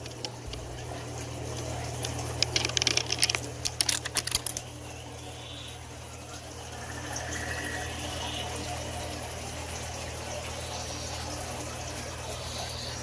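Water running and splashing in an indoor exhibit fountain, over a steady low hum. A quick run of sharp clicks and taps comes between about two and four and a half seconds in.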